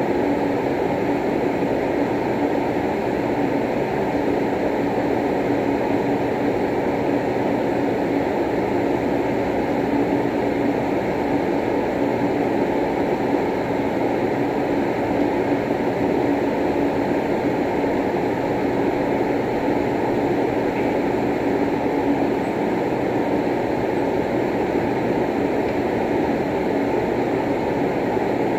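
Steady droning room noise with a constant low hum that does not change; no ball strikes stand out above it.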